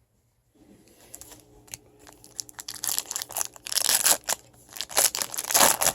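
Foil wrapper of a trading-card pack being torn open and crinkled: a crackling that starts about half a second in and grows louder, loudest near the end.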